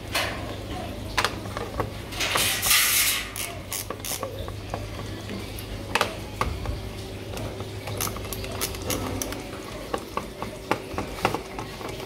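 Screwdriver working the screws out of a washing machine's plastic control-panel housing, with the board and panel handled: a run of sharp clicks and ticks, and a longer rasping scrape about two to three seconds in.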